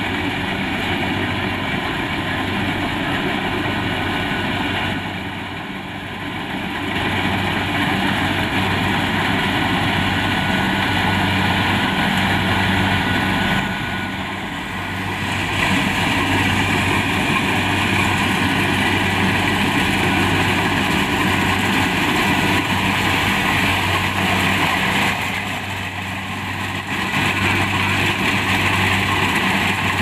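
Kubota DC-70 Plus rice combine harvester running steadily while cutting standing rice: diesel engine hum with the clatter of the header and machinery. The sound dips briefly three times.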